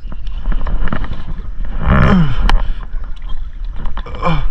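Water splashing and sloshing against a kayak as a hooked fish is brought up alongside, with sharp clicks and knocks from the tackle and hull, and wind on the microphone.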